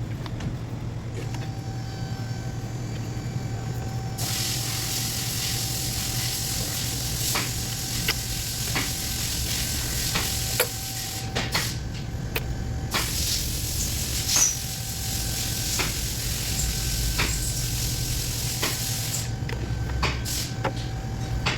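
A loud hiss of spray or a jet of air runs for several seconds, stops briefly, then runs again, with scattered clicks. A steady low hum runs underneath.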